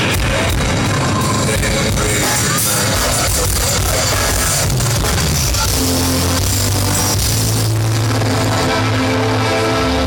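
A live band playing loud over a concert PA, with sustained bass notes coming to the fore in the second half.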